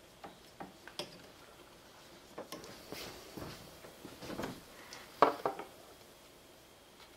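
Handling sounds of hands and a thin metal pick tool working at coolant hoses and plastic connectors in a car's engine bay: scattered light clicks and taps, a rustle in the middle, and a quick cluster of louder clicks about five seconds in.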